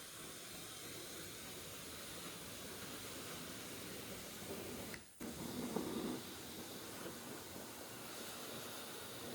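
Self-serve spray wash's high-pressure wand spraying with a steady hiss, cut off briefly about five seconds in.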